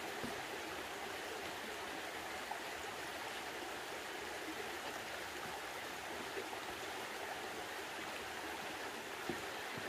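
Shallow mountain stream running over rocks: a steady rushing, with a few faint knocks.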